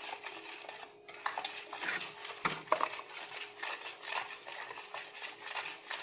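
A plastic spoon stirring warm water in a plastic bowl, with a run of quick strokes against the bowl and a sharp knock about two and a half seconds in.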